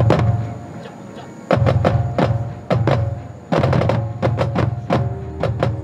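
Marching band percussion playing loud accented hits in groups, with deep drum strokes and ringing mallet-keyboard notes over them, separated by short pauses.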